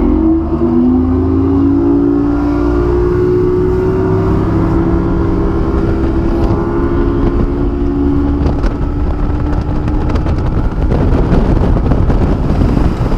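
Bass boat's outboard motor running the boat up to speed: the engine note climbs over the first couple of seconds, then holds steady at cruising speed. Wind rushing over the microphone grows stronger near the end.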